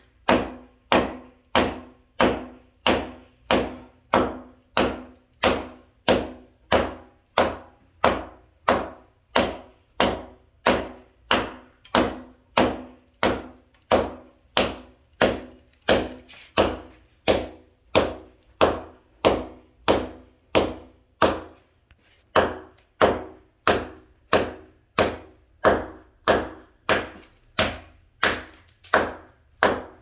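Small sledgehammer (club hammer) striking a painted wall again and again, chipping its surface: sharp knocks at about two blows a second, each with a short ringing tail, with a brief pause about two-thirds of the way through.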